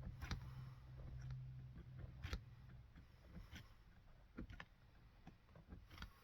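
Scattered light clicks and taps of work on a boot in a cobbler's workshop, over a low steady machine hum that stops about three seconds in.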